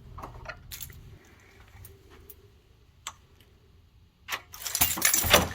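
Small hard clicks, a sharp single click about three seconds in, then about a second of loud metallic rattling and scraping near the end, from handling the Onity door lock's battery cover plate and a T10 screwdriver.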